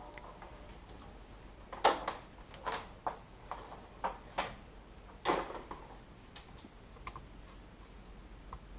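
About a dozen irregular sharp clicks and light knocks, the loudest about two seconds and about five seconds in: hands handling the aux cable's plug and pressing the plastic buttons of the Mini's head unit.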